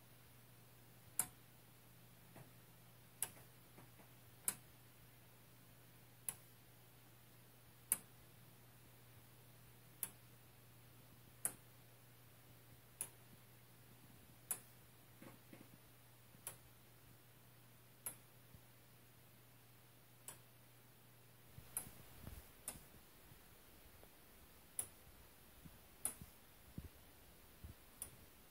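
Iron movement of a replica medieval weight-driven clock ticking slowly, one sharp tick about every one and a half to two seconds.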